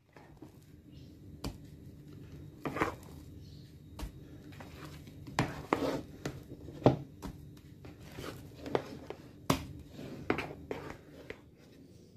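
Spatula scraping and knocking against a mixing bowl as creamed margarine is scooped into whipped egg-yolk batter: irregular short scrapes and soft squishes with several sharp knocks, over a low steady hum.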